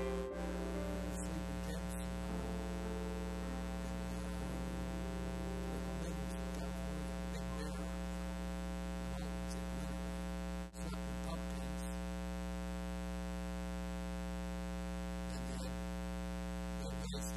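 Steady electrical hum with a stack of harmonics, briefly dropping out about eleven seconds in.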